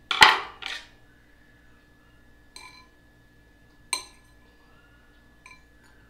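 Metal clinking against a small glass bowl three times, each clink ringing briefly, as a knife works the spring and pieces out of a heat-softened clothing security tag. A louder knock and rustle of handling comes just at the start.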